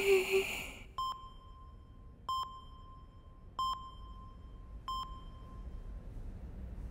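The tail of a sung note fades out, then an electronic hospital monitor beeps four times, evenly spaced about 1.3 seconds apart.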